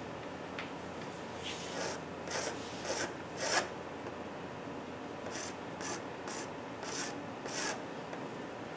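Pastel stick scratching across drawing paper in quick back-and-forth strokes, about two a second, with a short pause about four seconds in, as the head of a portrait is blocked in.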